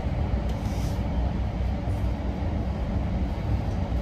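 Running noise of an electric passenger train heard from inside the carriage while it travels at speed: a steady low rumble of wheels on the rails, with a brief click about half a second in.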